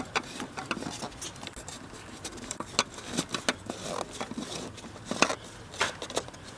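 A 2010 Volvo V50's oil filter cap being screwed on by a gloved hand: irregular small clicks and scrapes of plastic threads, glove and hoses against the housing.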